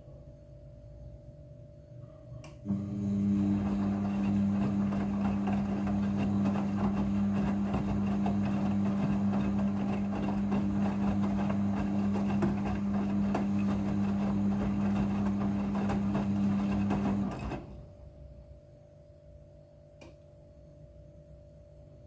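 Midea front-loading washing machine turning its drum during the rinse cycle: about three seconds in the motor starts with a steady low hum and the wet clothes and rinse water tumble and slosh for about fifteen seconds, then the drum stops.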